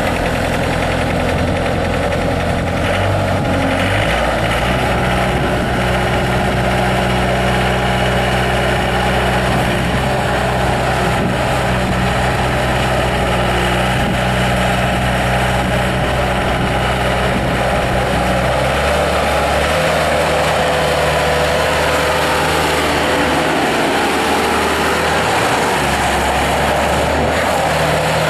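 Bobcat S250 skid steer's Kubota V3300 four-cylinder turbo diesel running just after being started. It runs steadily, and its engine speed steps up a few seconds in and shifts again a couple of times later.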